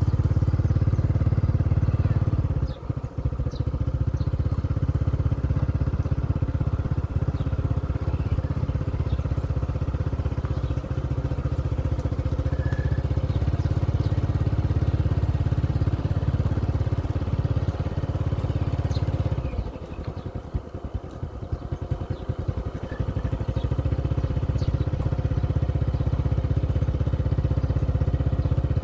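Small motorcycle engine running at a steady low speed, with a strong low rumble. The sound drops briefly about three seconds in, then again for a few seconds around twenty seconds in, as the engine eases off.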